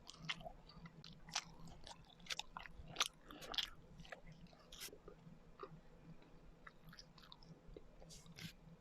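Close-miked chewing and biting of Filipino rice cakes (kakanin), with many sharp mouth clicks, busiest in the first five seconds and again near the end.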